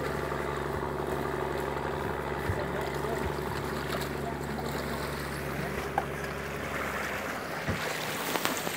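Diesel engine of a wooden popopo river boat running steadily in a low, even throb, with propeller wash churning the river water. The deepest part of the engine sound drops away near the end.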